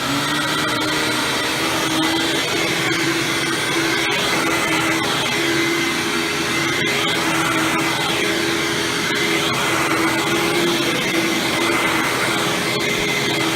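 Maytag-built Hoover WindTunnel 12-amp vacuum motor running at a steady speed, with a constant hum over a broad, even whoosh.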